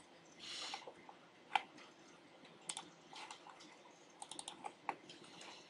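Faint, scattered clicks of a computer mouse and keyboard, with a quick run of several clicks about four seconds in.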